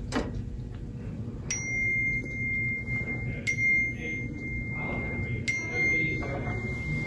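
A high, clear bell-like chime sounds three times, about two seconds apart, each note ringing on and fading slowly until the next one.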